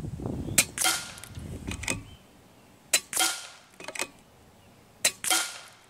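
Three shots from a Kalibrgun Cricket 2 Tactical .22 PCP air rifle, about two seconds apart, each a sharp crack with a short hissing tail, with faint clicks between them.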